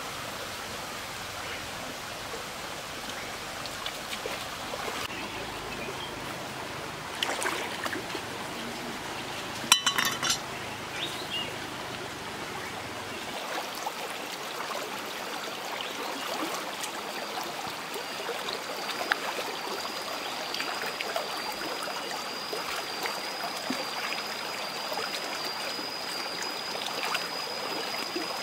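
Shallow stream running over rocks, with small splashes of hands washing bitter melons in the water in the second half. A sharp knock about ten seconds in, and a steady high-pitched tone in the last third.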